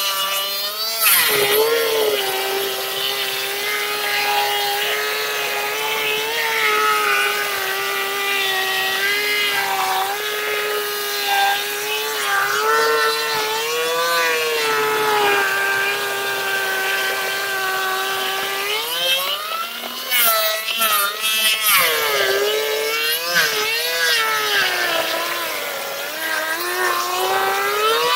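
Ridgid thickness planer running and cutting boards, with a loud, steady motor whine. The pitch sags and recovers as the cutterhead takes load, and it wavers most between about 19 and 24 seconds in.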